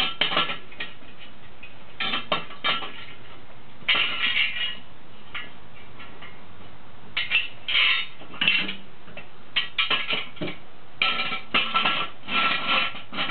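Steel jack stand and floor jack being set under a minivan, giving irregular bursts of metallic clanks and rattles with a slight ring, several clusters a second or two apart.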